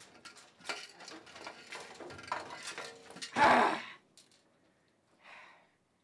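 Knocks and clinks as a man rummages head-first inside a washing machine drum, then a loud cry from him about three and a half seconds in as he pulls himself out.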